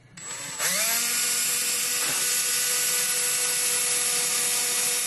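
DeWalt cordless drill spinning up at the start and running at a steady whine while it bores a hole through a small wooden checker piece.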